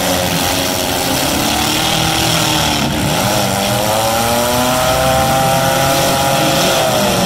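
Engines of several demolition derby cars running and revving together, their pitches rising and falling over one another.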